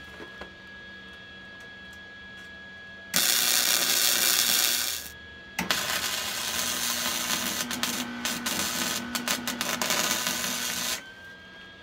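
Wire-feed (MIG) welder arc crackling as the legs are tack-welded to the propane-tank forge body. A first weld of about two seconds starts about three seconds in. After a short pause comes a longer, more uneven crackling weld of about five seconds that stops shortly before the end.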